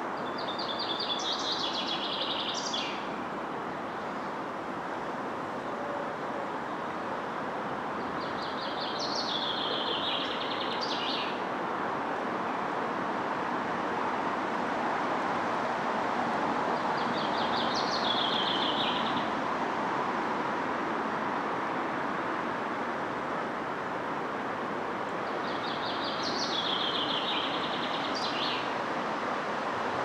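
A songbird sings the same short song of quick repeated notes four times, about eight seconds apart, over a steady hum of distant traffic.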